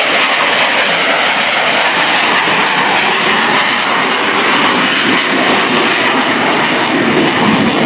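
A low pass by an F-22 Raptor, its twin Pratt & Whitney F119 afterburning turbofans producing a loud, steady jet rush whose sound shifts lower toward the end as the jet passes.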